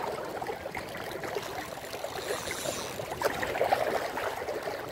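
Sea water lapping and trickling against the shore in small ripples, a steady, even wash with a faint click a little after three seconds.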